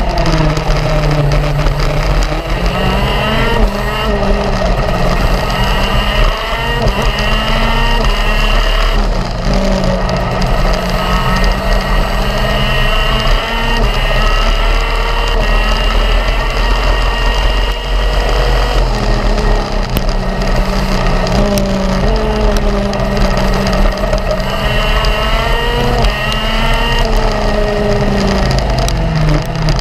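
Racing go-kart engine at full throttle, heard onboard: the revs climb steadily along each straight and drop sharply as the driver lifts for a corner, four or five times over.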